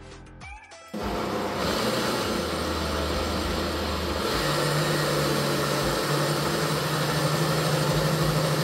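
Ninja countertop blender motor starting about a second in and running steadily, grinding soaked corn kernels with water into a slurry for pap, then cutting off sharply near the end.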